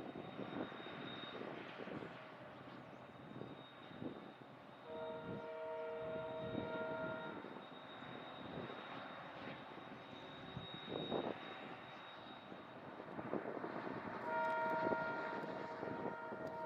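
Diesel-hauled passenger train running past with a steady engine rumble and wheel clanks. The locomotive's multi-tone air horn sounds twice: a blast of about two and a half seconds, then a longer one starting near the end, the loudest part.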